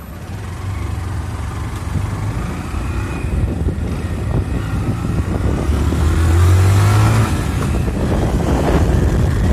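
Engine of a moving vehicle running as it drives along, with wind and road noise. It grows louder over the first second and is loudest around six to seven seconds in.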